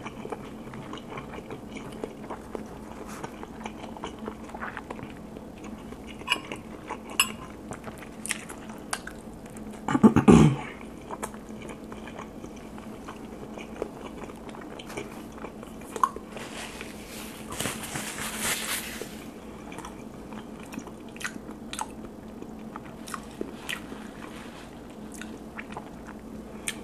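Close-up chewing of spicy instant noodles and a bologna sandwich, picked up by a clip-on mic: scattered wet mouth clicks and smacks. There is a short, louder sound about ten seconds in and a brief hiss a little later.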